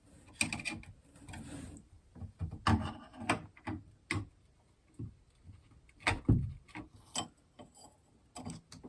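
Irregular clicks and light knocks of doorknob and latch hardware being handled and worked at, with a louder knock about six seconds in.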